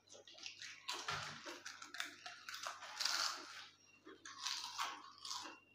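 Lay's potato chips being bitten and chewed: irregular crisp crunching in quick clusters with short pauses between mouthfuls.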